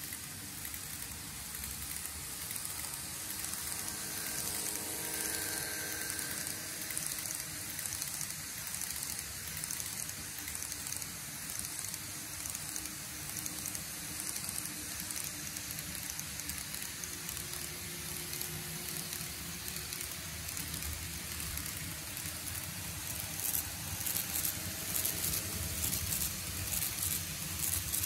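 N gauge model trains running on plastic-sleepered model track: a steady hiss and rumble of small wheels rolling over the rails. A few seconds before the end it gets louder, with a rapid run of clicks as a train passes close by.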